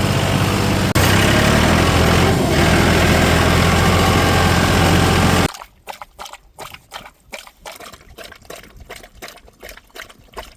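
Tractor engine running steadily at a low, even pitch. It cuts off abruptly a little over halfway through, leaving a much quieter run of irregular crunching sounds.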